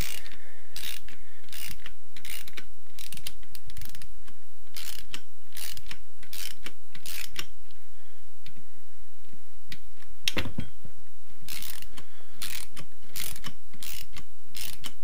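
Socket ratchet clicking as bolts are wound out: a short burst of clicks each time the handle is swung back, in a steady rhythm of roughly one stroke every three-quarters of a second.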